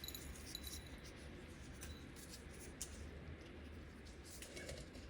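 Faint, light crackling and rustling of dried red chillies being rubbed by hand to shake the seeds out, with a few small clicks over a steady low hum.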